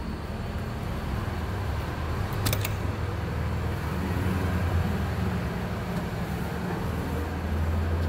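Steady low mechanical rumble, with one short sharp click about two and a half seconds in.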